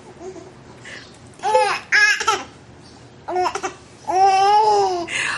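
Young baby cooing and giggling in a few short high-pitched bursts, then one longer drawn-out coo near the end.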